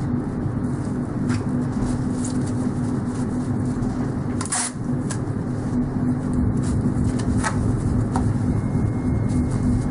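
Steady low mechanical hum of background machinery, with a few short sharp clicks and rustles from parts and packing material being handled.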